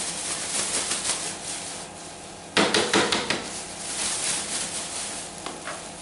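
Black plastic bin bag rustling and crinkling while a vacuum cleaner's plastic dust bin is shaken and emptied inside it. About two and a half seconds in there is a quick run of louder sharp knocks.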